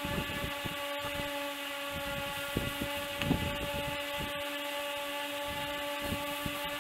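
A steady mechanical hum holding several fixed pitches, with irregular knocks and rustles of handling close to the microphone.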